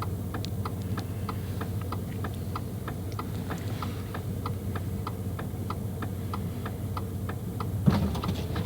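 A car's indicator flasher clicking evenly, about three ticks a second, over a steady low hum; a single thump near the end.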